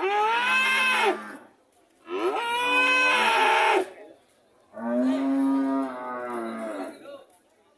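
Cattle mooing: three long calls one after another, each rising and then falling in pitch, the last one the longest.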